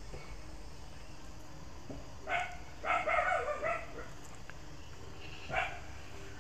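A dog barking a few times: one bark a little over two seconds in, a quick run of barks around three seconds, and another near the end.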